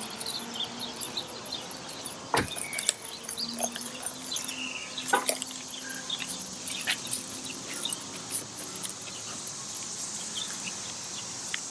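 Steady high insect chorus of an evening outdoors, with scattered light clicks and jingles from the dogs' collar tags and leashes as two small dogs are walked. A single sharp knock about two seconds in is the loudest sound.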